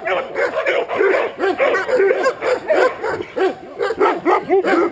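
Guard dog barking rapidly and without pause, about four barks a second, at a stranger approaching it during a guard-dog test.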